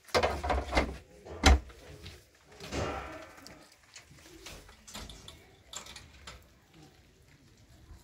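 Old sheet-metal door rattling and creaking on its hinges as it is moved, with a sharp knock about one and a half seconds in and a few lighter knocks after.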